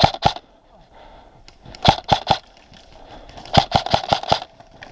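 Airsoft gunfire: sharp, close shots fired in quick groups. There are two near the start, three about two seconds in, and a run of about six near the end.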